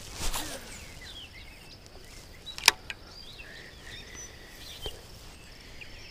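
Birds chirping against quiet open-air background, with a brief swish as a baitcasting rod is cast near the start and one sharp click a little under three seconds in.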